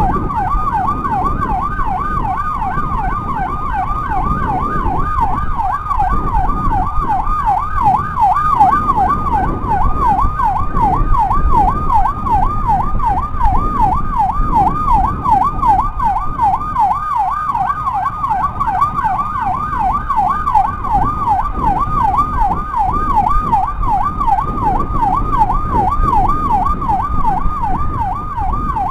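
Electronic escort siren on a motorcycle, likely its 60-watt unit, sounding a fast yelp that sweeps up and down continuously. Underneath are the motorcycle's engine and road rumble.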